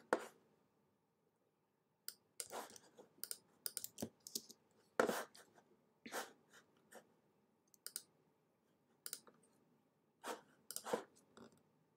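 Computer mouse clicks and keyboard keystrokes: short, sharp clicks scattered irregularly with gaps between them.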